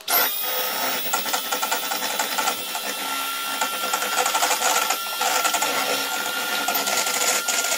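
Electric hand whisk switched on and running steadily with a steady whine, beating egg yolk while oil is added to emulsify it into mayonnaise.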